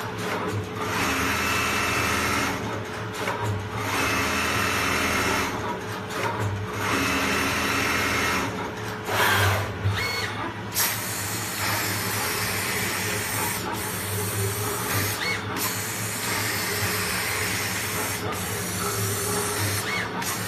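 Automatic pattern sewing machine with a laser cutting head running at stitching speed, a steady machine noise whose high hiss drops out briefly several times.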